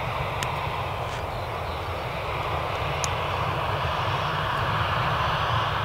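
Boeing 757-200 jet engines running steadily as the airliner climbs away after takeoff: an even rush of jet noise with a low rumble underneath.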